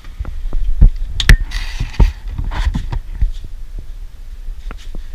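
Handling noise: irregular low thumps and knocks, with a sharp click about a second in, as the hand-held camera and the spinning reels on a display shelf are handled.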